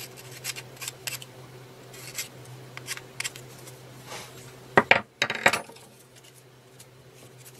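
Small clicks and scrapes of a screwdriver working on the plastic brush-holder ring of a Kress 802 WS angle grinder, with a quick cluster of sharper clicks about five seconds in.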